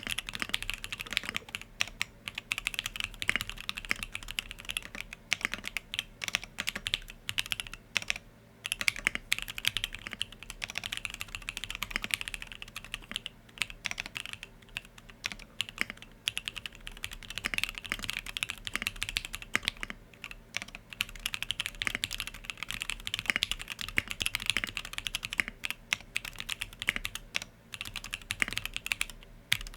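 Continuous fast typing on a Monstargear Sangeo65 mechanical keyboard with lubed SP-Star Yanyu linear switches in an aluminium plate, dense keystroke clacks with a short pause about eight seconds in.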